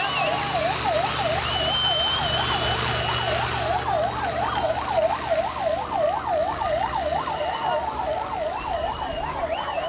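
Ambulance siren sounding a fast wail that sweeps up and down a couple of times a second.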